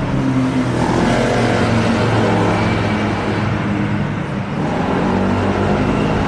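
McLaren sports car's twin-turbo V8 running at low speed in traffic, a steady low exhaust note with street traffic noise behind it.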